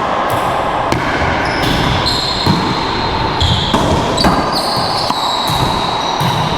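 Racquetball rally: a hollow rubber ball hit with racquets and slapping off the court walls and floor, a sharp knock every half second to a second, with short high sneaker squeaks on the court floor between hits.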